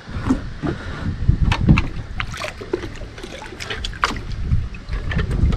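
Water splashing and dripping, with a few light plastic knocks, as a yellow plastic fish basket is lifted out of the water, in a run of short irregular splashes.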